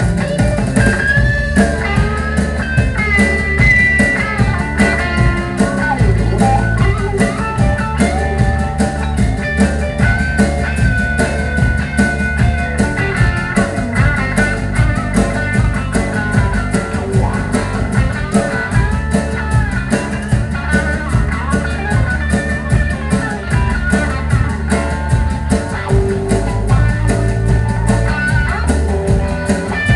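Rock trio playing live, with no singing: an electric guitar plays a lead line with bent, gliding notes over a bass guitar and a drum kit keeping a steady beat.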